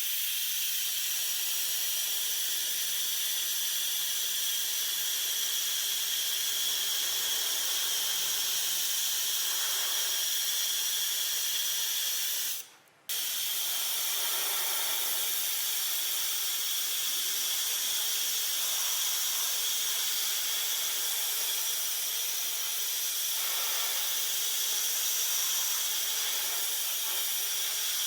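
Steady, high hiss of a spray or compressed-air jet that stops for about half a second partway through and then starts again.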